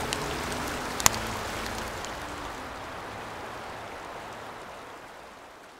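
Campfire crackling as an even hiss with a sharp pop about a second in, fading out toward the end.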